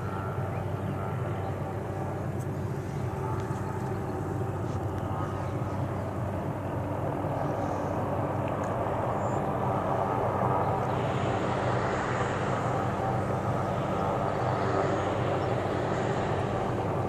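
Helicopter hovering overhead: a steady, even drone of rotor and engine. It grows a little louder about ten seconds in.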